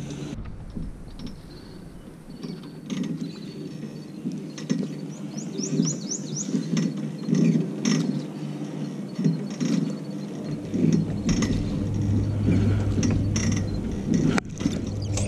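A spinning reel being cranked in short, irregular spells, its gears ticking and grinding. A low steady hum comes in about ten seconds in.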